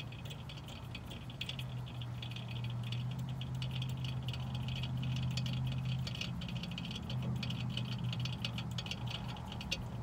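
Rapid light clicking of a hand tool turning the electric-parking-brake spindle of a BMW rear brake caliper clockwise with a T45 Torx bit, winding the mechanism back, over a steady low hum.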